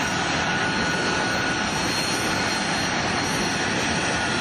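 F-35B Lightning II's F135 turbofan running on the ground at a steady idle: a continuous rush of jet noise with high, steady whine tones over it.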